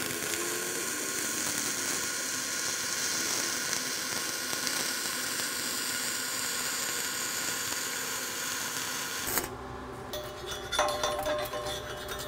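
Flux-core wire-feed welding arc running steadily as an overhead cap pass is laid, cutting off about nine seconds in. After it come a few light metallic clinks.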